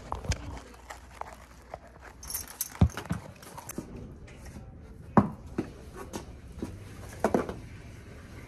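Handling noise from a phone camera being picked up and set in place: irregular knocks and clicks, with footsteps on concrete and a brief jingle about two and a half seconds in.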